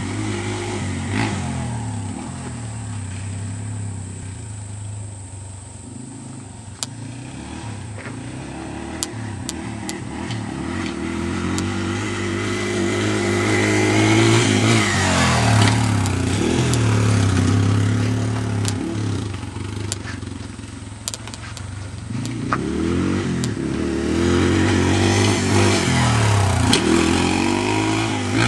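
Dirt bike engine revving up and dropping back again and again as it rides the track, growing louder as the bike comes near about halfway through and again near the end.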